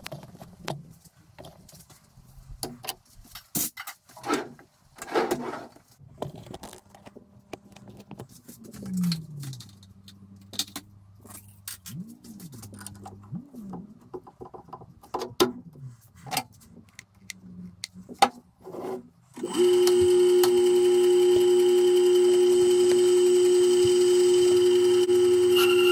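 Metal clinks and clunks of lathe tooling being handled and set up, then about three-quarters of the way in a Myford lathe is switched on and its spindle runs with a steady whine.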